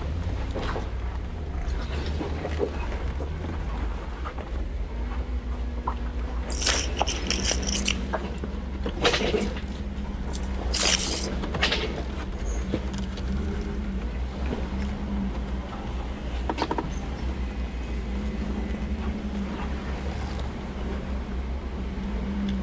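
4x4's engine running low and steady at crawling pace over rocks, with a cluster of sharp scrapes and knocks of rock against the vehicle about seven to twelve seconds in.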